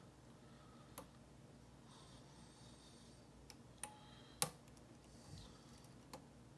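Faint metallic clicks and light scraping of a hook pick and tension wrench working the pins of a pin-tumbler lock, with a sharper click about four and a half seconds in.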